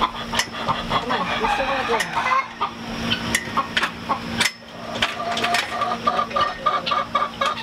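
Chickens clucking, with short calls throughout, over repeated sharp clicks and knocks of the chain-link gate's latch and frame as a dairy goat noses at it, trying to let herself out.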